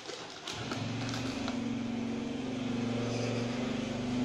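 A low, steady engine hum starts about half a second in, holds for about four seconds and begins to fade near the end.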